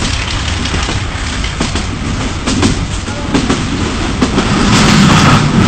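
Passenger train running at speed: a steady rumble and rush with the wheels clacking over the rail joints, growing louder near the end.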